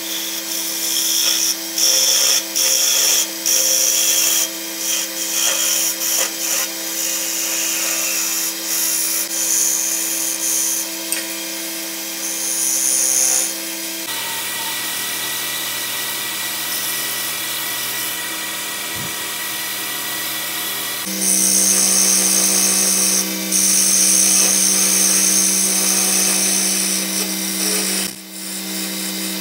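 Wood lathe motor running steadily while a narrow turning chisel scrapes and cuts the spinning wood in short repeated passes. About halfway through the cutting stops and only the motor hum is heard, then the chisel cuts again for several seconds.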